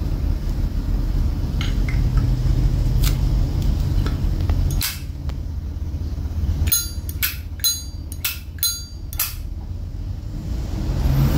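Silver-plated Zippo lighter's hinged lid clicking open and snapping shut: one sharp metallic clack about five seconds in, then a quick run of about seven clacks over two and a half seconds.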